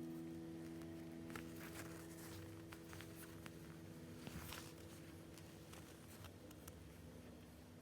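A held music chord dying away over the first few seconds. Over it and after it come faint scattered rustles and small ticks.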